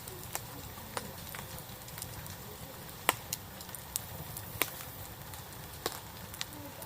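Wood fire crackling, with sharp irregular pops every half second to a second or so.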